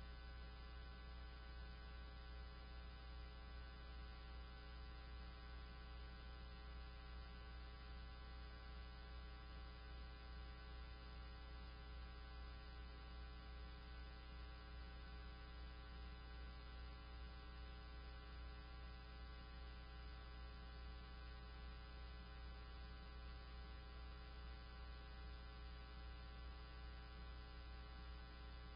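Faint steady electrical hum with a stack of overtones, unchanging throughout.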